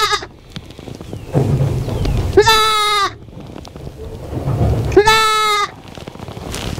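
Goat kid bleating loudly twice, about two and a half seconds apart. Each call lasts about two-thirds of a second on one steady pitch, and the tail of an earlier bleat is heard at the very start. A low rumbling noise fills the gaps between the calls.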